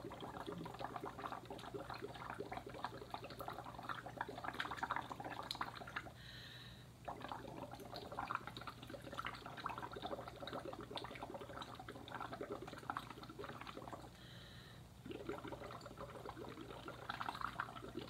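Bubbling of breath blown through a drinking straw into a cup of red cabbage juice, in three long exhalations with brief pauses for breath about six and fourteen seconds in.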